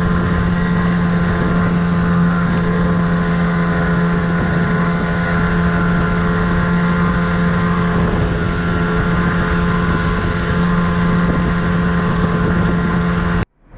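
Outboard motor of an inflatable boat running steadily at an even speed, with wind on the microphone; the sound cuts off abruptly near the end.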